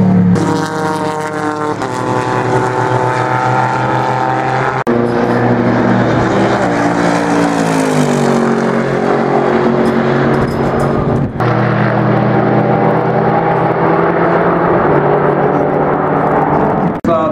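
Mercedes-Benz SLS AMG GT3's naturally aspirated 6.2-litre V8 racing past at speed, its engine note rising and falling through gear changes and pass-bys. The sound jumps abruptly between clips about 5 and 11 seconds in.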